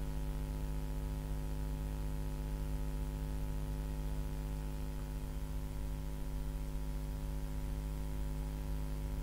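Steady electrical mains hum: a low buzz made of several evenly spaced steady tones, with nothing else in it.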